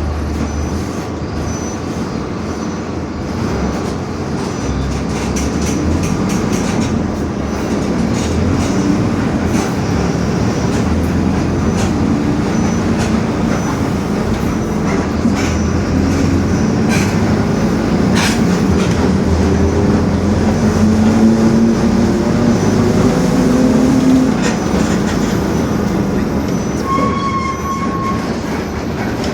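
Mercedes-Benz OF-1721 diesel city bus under way, with the drivetrain note rising in pitch as the bus gathers speed, then easing off. The differential is growling, and there are body rattles throughout. A brief beep comes near the end.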